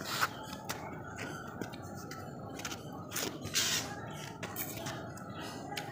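Eating rice by hand from a steel plate: fingers mixing and scooping the rice, then chewing, heard as scattered small clicks and scrapes with a short hissy burst about halfway through.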